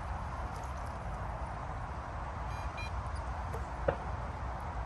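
Wind buffeting the microphone over small waves lapping at the lake's edge. About two and a half seconds in comes a short electronic beep from a carp bite alarm as the rods on the pod are handled, and there is a single sharp knock near the end.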